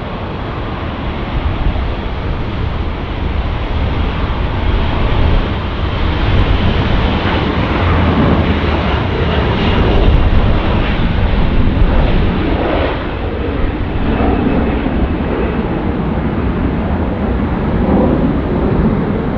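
Jet airliner's engines passing close: a loud rushing rumble that builds over the first few seconds, peaks about halfway through and stays loud with a deep low rumble.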